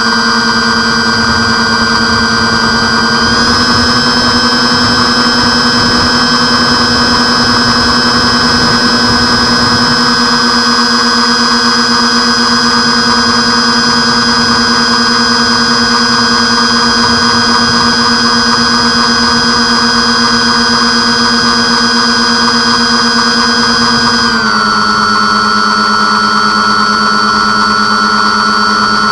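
Twin motors and propellers of an RC airplane in flight, picked up close by its onboard camera: a loud, steady whine. Its pitch steps up slightly about three seconds in as the motors speed up, then drops noticeably near the end as they slow.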